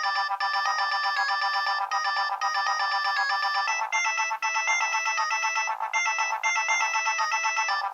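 A Nokia 3200 mobile phone playing a ringtone through its small loudspeaker: a fast electronic melody of quick, even notes with several tones sounding at once. It is thin, with no bass.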